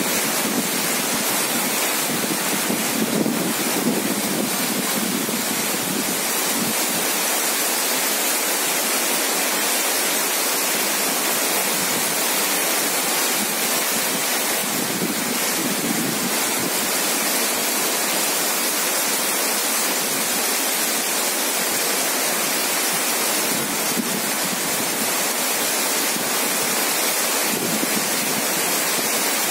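Heavy rain falling hard in a steady, unbroken downpour.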